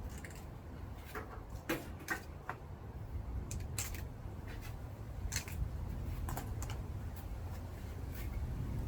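Irregular clicks, snips and light knocks as scrap wire and its plastic sleeving are handled and worked, over a low steady rumble.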